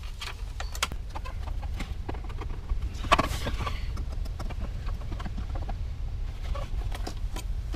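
Light clicks and taps from a clear plastic weatherproof outlet cover and a screwdriver being handled at the outlet, over a low steady rumble. About three seconds in comes a brief, harsh, louder sound, the loudest moment.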